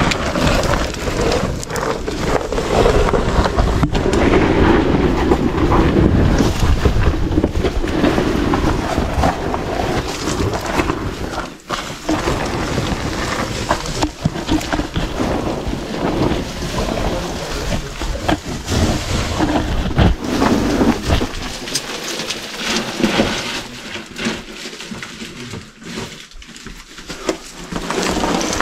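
Crawling through a low, rubble-strewn tunnel entrance: loose gravel and stones scraping and crunching, with rubbing and knocks close to the microphone that make a steady rumble. The noise is loudest in the first half and thins out after about twenty seconds.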